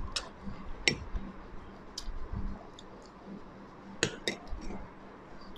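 Spoon clinking against a small glass bowl while scooping dessert: several short, sharp clinks, spread out, with two close together about four seconds in.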